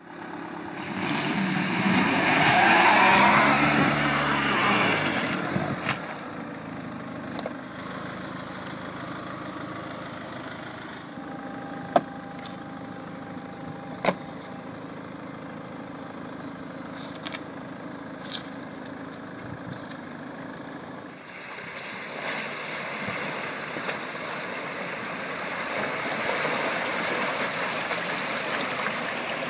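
Land Rover Discovery Sport's engine running as it crawls down a steep muddy slope, its pitch rising and falling in the first few seconds, with two sharp knocks about two seconds apart in the quieter middle stretch. In the last third, water rushing and splashing as the SUV wades through deep muddy floodwater.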